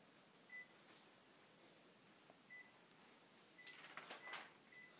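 Mostly quiet, with a paper sheet rustling as it is handled in the second half, and several short, faint high beeps at the same pitch scattered through it.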